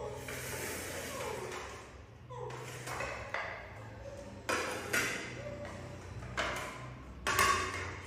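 Plastic plates set down on a tiled floor one after another, giving several sharp clacks in the second half, the loudest near the end. Short falling voice-like sounds come in the first half.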